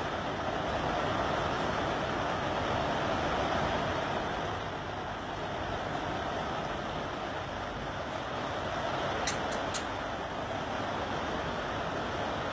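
Heavy rain falling, a steady dense hiss, with three quick clicks about nine and a half seconds in.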